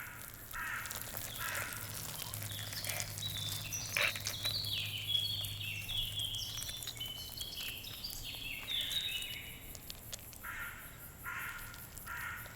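Birds calling outdoors: short harsh caw-like calls repeated near the start and again near the end, with a run of quick falling chirps from another bird in the middle.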